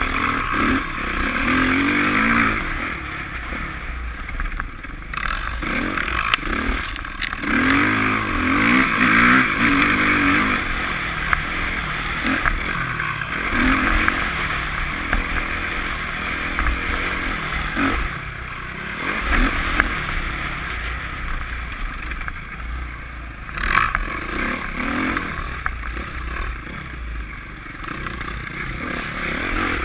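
Dirt bike engine, heard from the rider's own bike, revving up and falling back repeatedly as it is ridden through snow, with a steady rushing noise over it.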